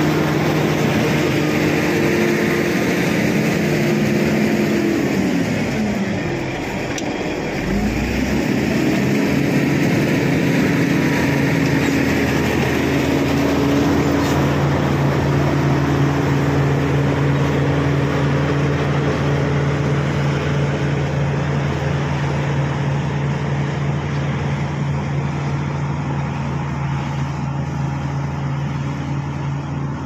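Shantui SD16 crawler bulldozer's diesel engine running steadily as the machine works through mud. About six seconds in, the engine note dips sharply and climbs back up over a couple of seconds, then holds steady.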